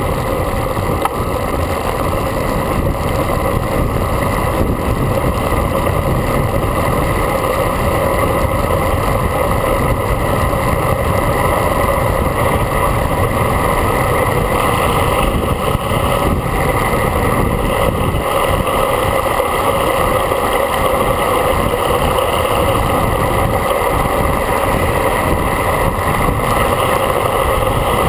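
Steady, loud wind rush buffeting the microphone of a handlebar-mounted camera on a road bike riding fast.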